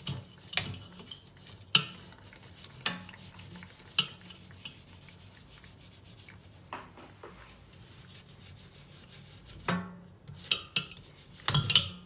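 A brush scrubbing a live blue crab in a stainless steel bowl of water, with scattered sharp clinks and knocks of shell and brush against the metal bowl, several in quick succession near the end.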